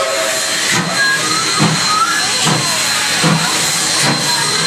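Queensland Railways DD17 class 4-6-4T steam tank locomotive working slowly, its exhaust beating about once every 0.8 seconds over a steady steam hiss.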